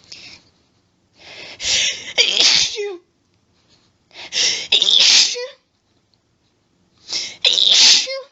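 A woman sneezing three times in an allergic sneezing fit, about three seconds apart. Each loud sneeze rises out of a short hitching build-up.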